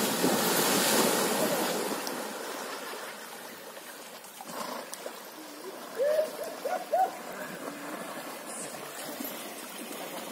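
A horse plunging through a river, a loud rush of splashing water over the first couple of seconds that dies down to the quieter wash of the river. Around six to seven seconds in come four short rising hoots.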